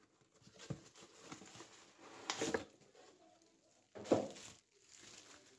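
Cardboard gift box and its packaging rustling and crinkling as they are handled and a Santa bowl is taken out, with two louder brief rustles about two and a half and four seconds in.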